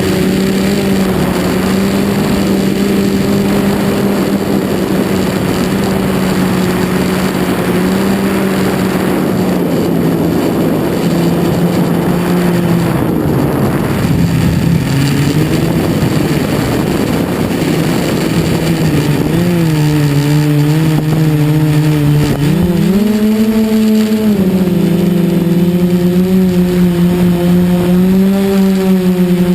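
Quadcopter's KDA 20-22L brushless motors and propellers whining steadily in flight, with air rushing past. The pitch drops about 19 seconds in and jumps back up about three seconds later as the throttle changes.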